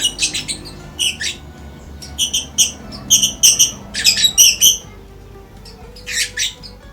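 A caged songbird calling in short, sharp chirps, several in quick succession through the middle and a brief pair near the end.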